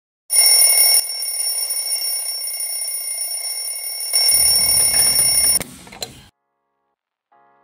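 Twin-bell alarm clock ringing continuously for about five seconds, then cutting off abruptly, with a single click just after.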